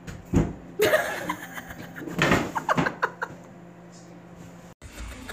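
A thump and a sharp crash as a cat leaps down a stairway, followed by someone laughing.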